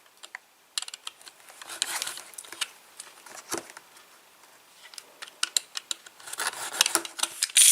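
Cardboard trading-card display box being handled and opened: scattered clicks and taps with short bursts of rustling, busiest near the end.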